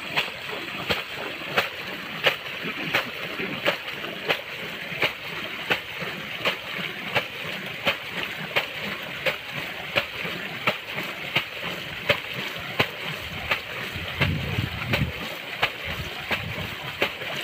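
Regular splashing in shallow flooded rice-paddy water, a sharp splash about every 0.7 seconds over a steady hiss.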